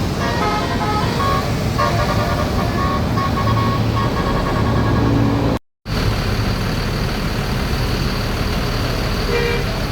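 A bus's telolet basuri horn playing a tune of short notes that step up and down in pitch, over engine rumble. It breaks off suddenly about five and a half seconds in, leaving steady bus engine and road noise with one brief horn note near the end.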